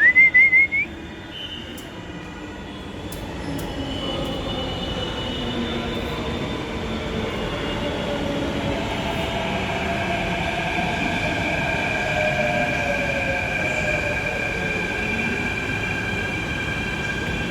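Mumbai Metro train running, with steel wheels squealing in several steady high tones over a rumble, growing louder from about 4 seconds in. A short high warbling sound comes at the very start.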